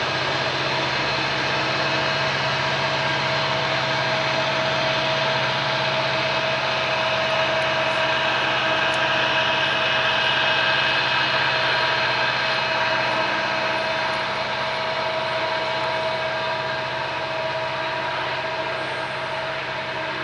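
Distant Norfolk Southern diesel-electric locomotives working hard upgrade with a heavy coal train: a steady engine drone with a held whine over it, easing slightly in the last few seconds.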